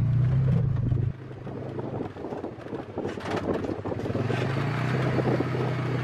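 Side-by-side utility vehicle driving over rough, rutted dirt: a steady low engine hum with knocking and rattling. The hum drops out suddenly about a second in, leaving mostly rattles, and comes back about four seconds in.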